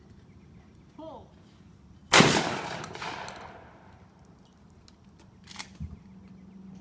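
A single shotgun shot about two seconds in, with a long echo dying away over about two seconds, followed by a fainter sharp crack about three and a half seconds later.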